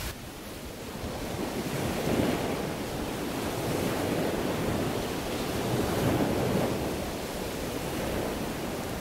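Sea surf breaking and washing onto a sandy beach, swelling louder twice, with wind.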